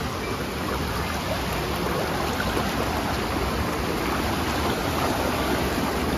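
Clear, shallow creek water rushing steadily over rocks and through a small cascade.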